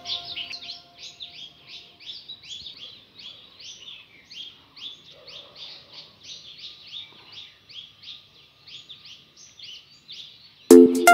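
A bird calling a long, even series of short rising chirps, about three a second. Background music starts loudly near the end.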